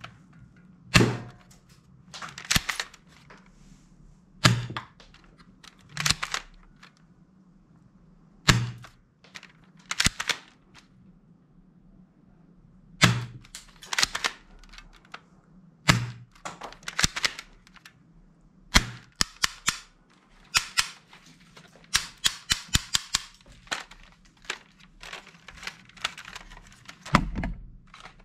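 Black plastic toy rifle being worked and fired: sharp shot-like cracks and clicks, one every second or two, with a quick run of clicks about three-quarters of the way through.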